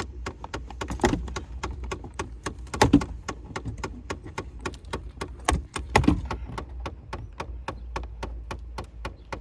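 Rapid, even clicking, about five clicks a second, from a faulty HVAC air door actuator behind a Chevy Impala dash, the sign of a failing actuator. A few louder knocks of plastic dash trim being pried out come about one, three and six seconds in.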